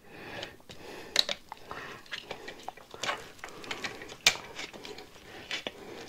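Scattered light clicks and knocks of a tire installation tool being worked against a bicycle rim and a solid airless tire, with the sharpest knock about four seconds in.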